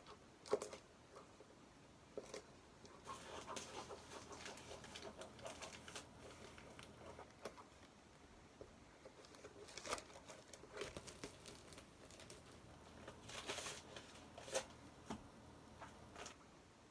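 Faint scattered rustling, clicking and tearing of a parcel's packaging being cut open with scissors and pulled apart by hand.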